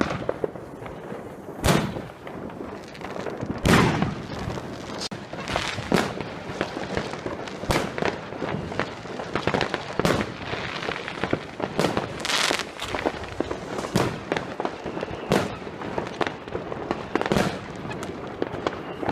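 New Year's Eve fireworks: a steady crackle of many firecrackers and shells going off, with frequent sharp bangs every second or two, the loudest about two and four seconds in.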